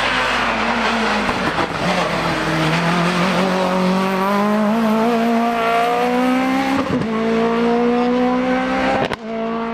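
Hillclimb race car's engine accelerating hard up through the gears, its pitch climbing steadily and breaking at gear changes about seven and nine seconds in.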